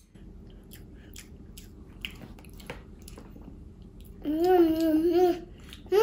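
A toddler babbling in a sing-song voice for about a second, starting about four seconds in. Before that there is only faint room noise with a few light clicks.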